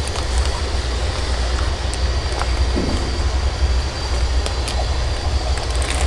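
Steady low rumble of room background, with faint crinkles and clicks from plastic fish bags being handled in a styrofoam shipping box.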